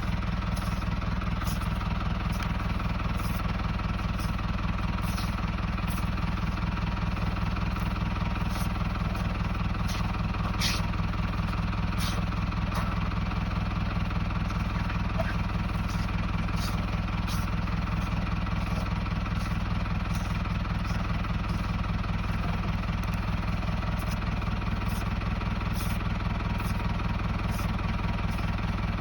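A steady motor drone, like an idling engine, running evenly throughout, with faint ticks recurring roughly once a second.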